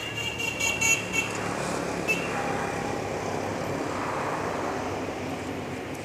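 Rustling and crunching of a woven plastic sack as soil is scooped out of it by hand, over steady road traffic noise.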